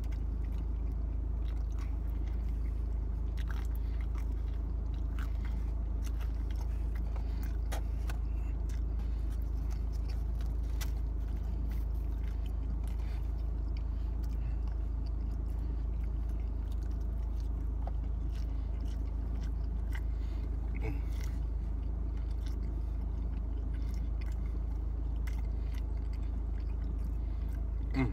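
A person chewing and biting into pizza close to the microphone, with scattered small crunches and mouth clicks, over a steady low hum.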